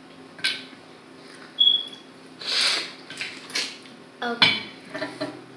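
Scattered clicks and cracks of crab legs and shells being handled and broken at a table, with a plastic sauce container being handled; the loudest sharp crack comes near the end.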